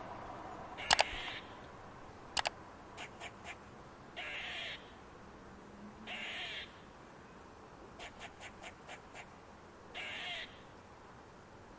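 An animal, most likely a bird, giving three harsh, raspy calls about two seconds apart. Sharp clicks come between them: two loud pairs early on, then runs of fainter ticks.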